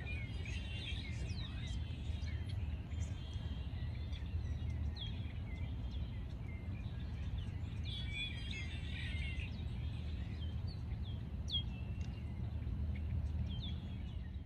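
Small birds chirping and calling, many short high chirps and quick sweeping notes, over a steady low rumble.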